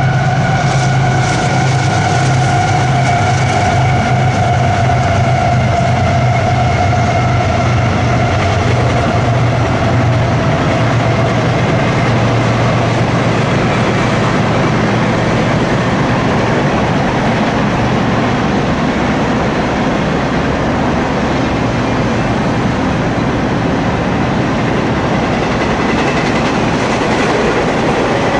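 CSX intermodal freight train passing. For roughly the first ten seconds the diesel locomotive's engine is heard under a steady whine that slowly drops in pitch. After that comes the even rolling and wheel noise of the container and trailer cars going by.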